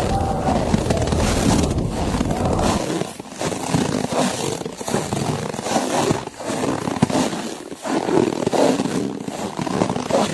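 Footsteps crunching through snow, about one step every second and a half, over a wind rumble that drops away about three seconds in.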